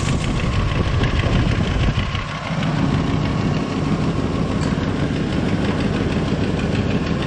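A 2000 Ford Explorer's engine idling steadily with the AC on, the freshly replaced compressor running while the system is recharged, with a brief dip in the sound about two seconds in. The compressor is kicking on and off less often as refrigerant goes in, a sign that system pressure is coming up.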